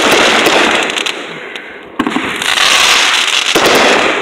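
Consumer firework cake shots bursting in the air. The crackle of one burst is fading when a second breaks with a sharp bang about two seconds in, followed by a second and a half of dense crackling.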